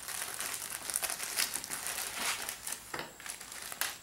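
Plastic parts bag crinkling and rustling as it is handled and emptied, with a couple of sharp clicks near the end as small parts spill onto the table.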